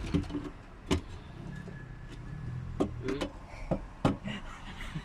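Several short, sharp knocks and clicks at uneven intervals over a low steady hum.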